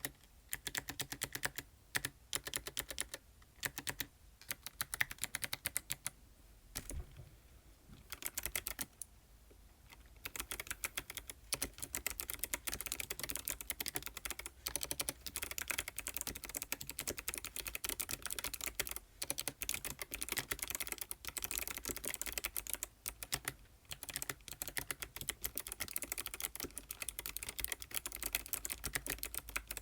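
Typing on an ABKO ADK05 mechanical keyboard with white switches: rapid, dense key clicks, broken by two short pauses about a quarter of the way in, then fast continuous typing.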